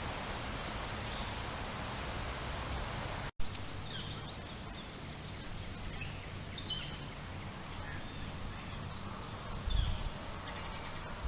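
Steady outdoor hiss, then after a brief dropout about three seconds in, small birds chirping here and there, with a low thump near the end.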